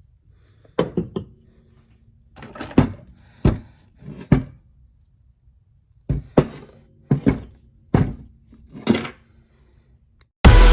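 Tools and metal parts of a CX Racing turbocharger knocking and clinking during disassembly: a series of separate sharp knocks and taps with pauses between them. Music starts abruptly near the end.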